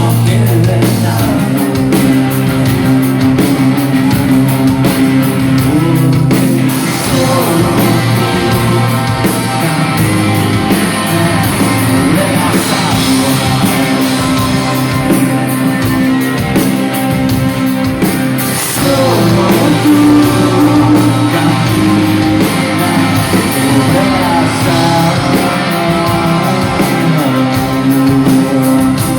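Live rock band playing loud with a steady drum beat, with singing over it.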